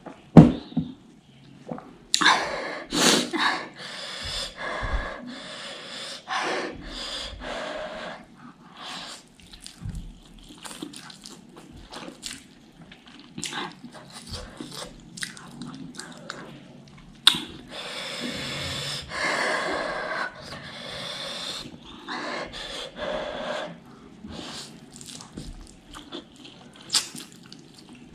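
A person eating ghost-pepper noodles close to the microphone: chewing, with repeated hard, hissing breaths, several about a second long, from the burn of the chili.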